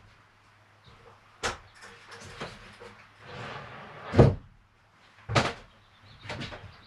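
Knocks and thumps of things being handled and set down, with a brief scraping rustle just before the loudest thump a little after four seconds in, over a faint steady hum.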